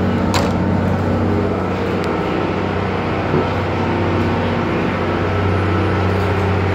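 Tour boat's engine running steadily, a low drone heard inside the cabin, with a single click about half a second in.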